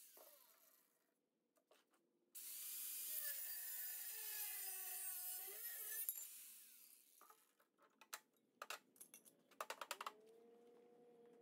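Corded angle grinder with a cut-off wheel cutting through steel angle iron. It winds down at the start, then after a short pause runs through a cut for about four and a half seconds before winding down again. Light metallic clanks follow as the cut pieces are handled on the metal table.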